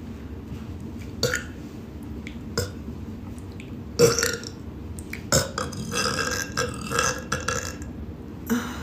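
A young woman burping: a couple of short burps, a loud one about four seconds in, then a long drawn-out burp lasting over two seconds.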